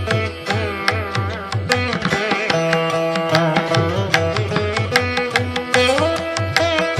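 Background music in Indian classical style: plucked string melody with bending notes over a steady tabla-like drum rhythm.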